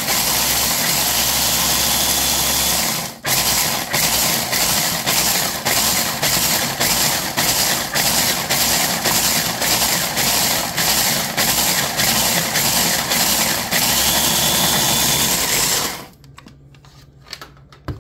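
Food processor grinding cooked, brittle eggshells into fine crumbles. The motor runs continuously for about three seconds, then is pulsed about twice a second until it stops near the end, followed by a couple of light clicks.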